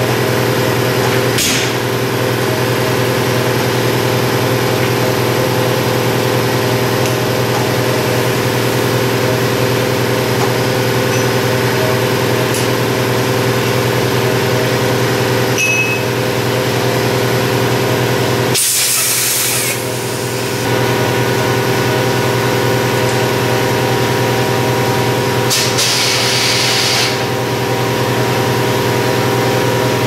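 Steady mechanical hum while a skid steer tire is inflated on a tire changer through an air hose. Two loud hisses of air break in, one about two-thirds of the way through that lasts about two seconds and a shorter one a few seconds later.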